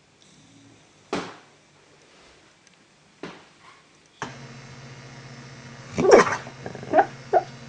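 Two sharp knocks, then a dog gives three short barks near the end, the first a little longer than the other two.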